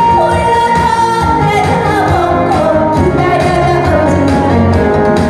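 A woman singing a Korean song into a handheld microphone over backing music, amplified through a PA speaker; long, sustained sung notes that slide in pitch over a steady beat.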